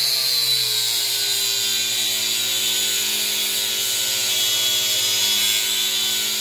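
Angle grinder with a 36-grit flap disc grinding steel off the heavy end of a lawn mower blade to balance it. The motor runs steadily under a high grinding hiss.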